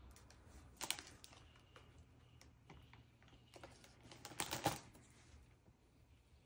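Foil snack-bar wrapper crinkling as it is handled and opened: faint crackles and small ticks, with two louder bursts of crinkling, about a second in and around four and a half seconds in.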